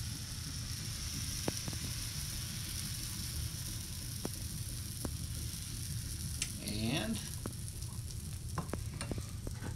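Waffle batter sizzling on the hot nonstick plates of a Waring WBW300X bubble waffle maker just after being poured in: a steady hiss with a few small ticks and pops scattered through it.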